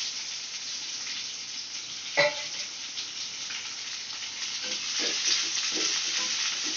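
Chopped onion sizzling in hot oil in a nonstick kadai, with a steady hiss as it is stirred with a wooden spatula. A single sharp knock about two seconds in.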